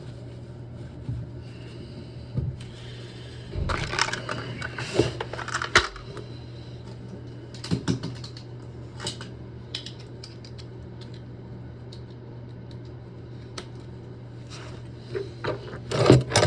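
Small metal valve parts and hand tools handled and set down: scattered light clicks and taps, bunched about four seconds in and again near the end, over a steady low hum.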